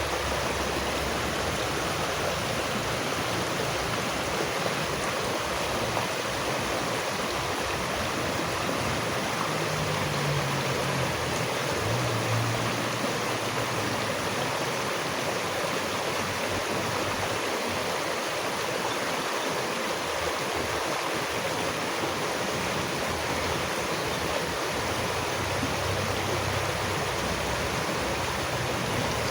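Running water rushing steadily, an even unbroken hiss with no swells or breaks.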